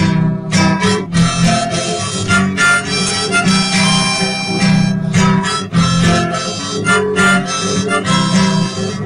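Instrumental break in a folk song: a harmonica plays the melody over strummed acoustic guitar.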